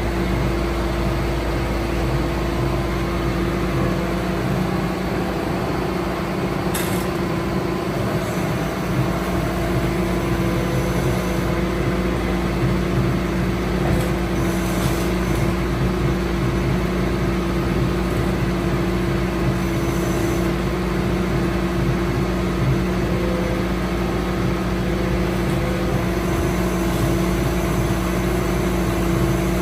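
Takeuchi compact track loader's diesel engine running steadily while the loader's arms and quick-attach work to hook up a forestry mulcher head, with a few brief sharp metallic sounds along the way.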